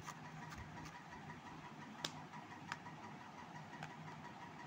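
Hands handling a smartwatch and its cardboard box tray: a few sharp little clicks and taps as the watch is pulled out, the loudest about two seconds in, over a steady faint hum.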